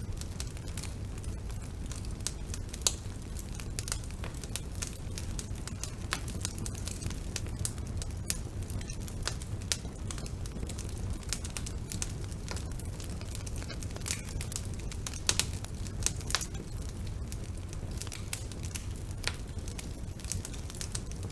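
Wood fire burning in a fireplace: irregular crackles and sharp pops from the burning logs over a steady low rumble of the flames, with a few louder pops scattered through.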